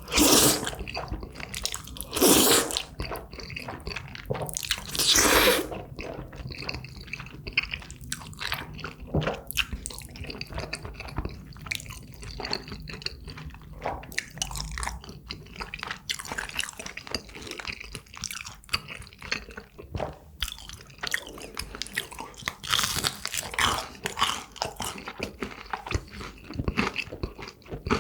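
Close-miked eating of jjajangmyeon (black-bean-sauce noodles) and tangsuyuk (crispy sweet-and-sour pork): chewing with crunches and wet, sticky mouth sounds. Three louder noisy bursts come in the first six seconds, about two to three seconds apart.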